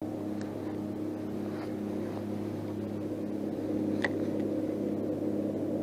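Steady motor hum from the boat, a low even drone with a faint regular pulsing. A single sharp click comes about four seconds in.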